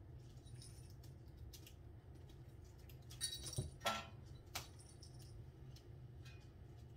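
Small wicker basket creaking and clattering as kittens tip it over: a cluster of sharp rustles and knocks starting about three seconds in, loudest near four seconds, with one more click soon after, over a faint steady low hum.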